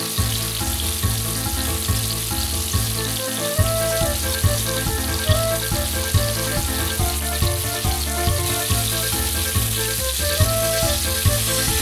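Floured garfish rolls sizzling in hot oil in a frying pan, a steady crackling hiss, under background music with a steady beat.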